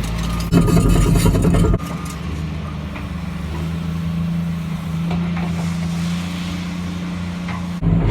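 Heavy vehicle engine running, a steady low hum that changes abruptly a few times.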